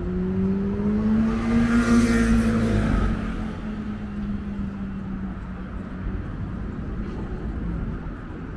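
A motor vehicle accelerating past on the street, its engine note rising and loudest about two seconds in, then fading into the steady rumble of traffic.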